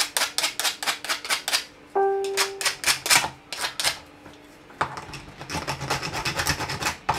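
Rasp file scraping a 3D-printed plastic part in quick back-and-forth strokes, about four or five a second. After a short pause a little past four seconds, the strokes come faster and lighter.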